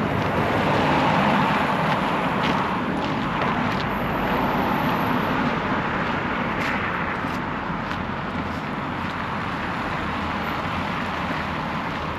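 Street traffic: a vehicle passing on the road, loudest about a second in and then slowly fading into the general traffic hum.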